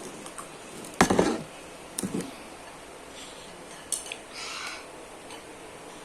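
Cutlery clinking and scraping against a dish during a meal, with a loud clatter about a second in and a few lighter clicks after.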